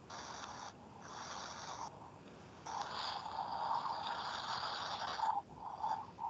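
Bursts of hissing noise on a video-call line, four in a row with short gaps, the last the longest at about two and a half seconds, then a few short blips.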